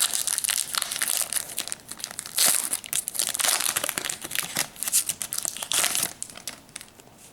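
Foil Pokémon booster pack being torn open and handled, its wrapper crinkling and crackling irregularly; the crinkling eases off near the end.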